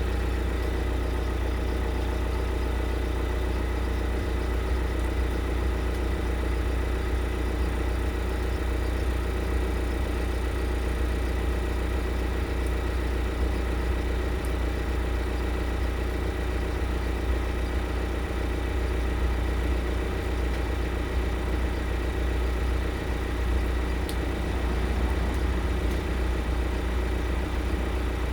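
Skoda Octavia IV running steadily, with a strong low rumble and a faint steady high tone. This is the odd noise the owner set out to record.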